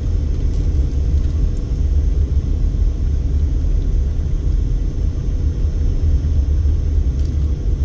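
Steady low road rumble inside the cabin of a moving Mercedes-Benz, from its tyres and engine.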